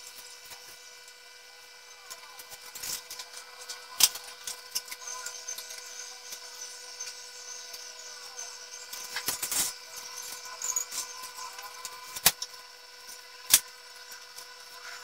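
Light handling noise of foam and balsa model-aircraft parts being fitted and pressed together on a glass tabletop, with a few sharp clicks and taps, over a steady faint hum.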